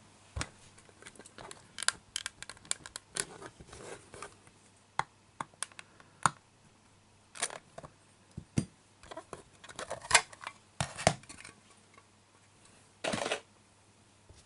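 Hard plastic display case and clear cover being handled on a tabletop: scattered light clicks and taps, with a short scraping slide a little before the end.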